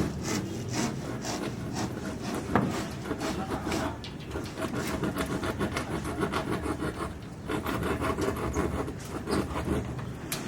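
Rhythmic rasping strokes of a hand tool worked against a hard surface, about two to three strokes a second.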